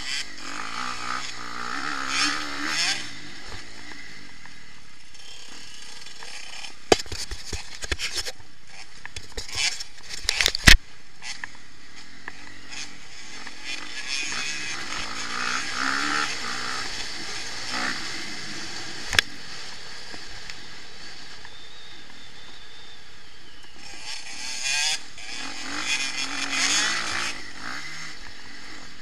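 Off-road motorcycle engine heard from on board, revving up and dropping back several times over the lap, under a steady rush of noise. A cluster of sharp knocks comes between about seven and eleven seconds in, with one more knock near twenty seconds.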